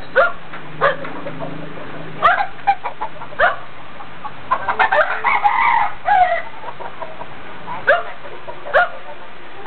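Chickens clucking in short, sharp calls repeated every second or so, with a denser run of calls about five seconds in.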